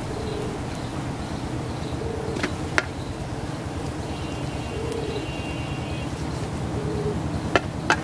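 A swarm of giant honeybees buzzing steadily around their smoked comb, with a few sharp clicks about two and a half seconds in and a pair near the end.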